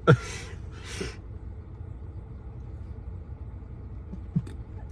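A woman's hiccups: a sharp hiccup with a brief voiced yelp sliding down in pitch right at the start, a breathy sound about a second in, and a smaller hiccup near the end, over a steady low rumble.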